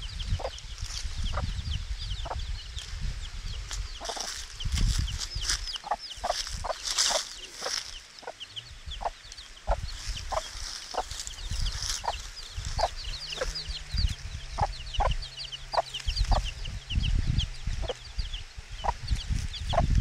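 Brahma mother hen clucking in short, repeated notes to her brood, with her week-old chicks peeping in quick, high chirps around her.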